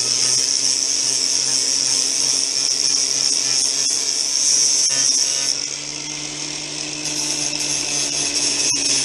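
Handheld power grinder running and grinding down a cracked plastic skid plate: a steady high hiss of abrasion over the motor's hum. About five and a half seconds in, the grinding gets quieter and the motor's pitch rises slightly.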